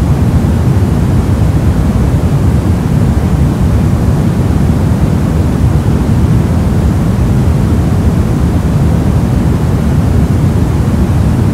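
Steady soft noise: an even, deep hiss weighted toward low pitches, with no tones, clicks or changes.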